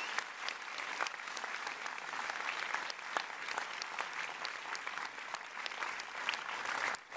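Cinema audience applauding: dense, steady clapping from many hands.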